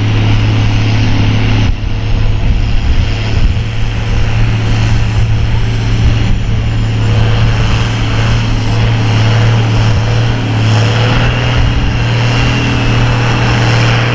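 Farm tractor's diesel engine running hard at a steady pitch under full load as it drags a weight-transfer pulling sled.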